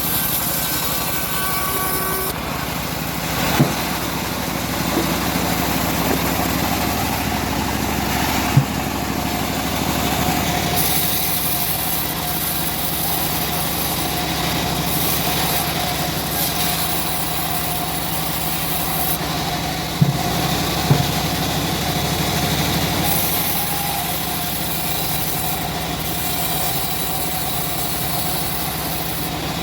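Homemade engine-driven bandsaw mill running steadily, with a few short sharp knocks.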